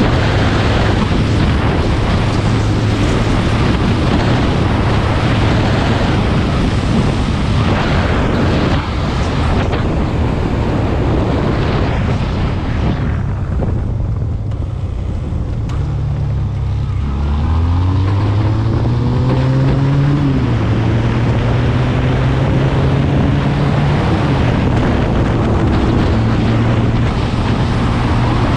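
SMC Barossa 250 quad's twin-cylinder engine running at road speed under heavy wind noise on the microphone. About halfway through the wind eases as it slows for a bend, then the engine pitch rises as it pulls away, dropping suddenly at a gear change a few seconds later and again shortly after.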